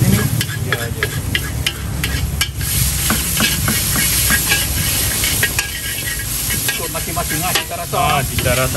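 Metal spatula scraping and clanking against a large wok as fried noodles are stir-fried, with a steady sizzle of the frying underneath.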